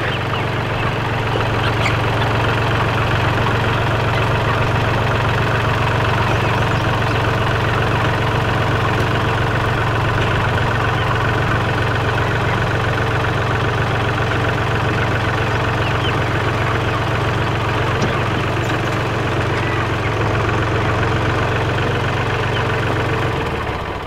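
Kubota compact tractor's diesel engine running steadily while the tractor creeps forward towing a chicken tractor across pasture; the engine note eases off just before the end as the tractor stops.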